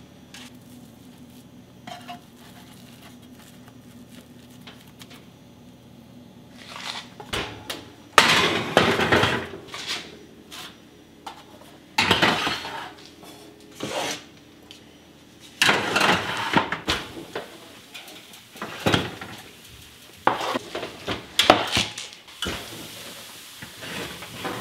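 Metal baking pans clanking and scraping against wire oven racks, in several bursts of clatter starting about eight seconds in.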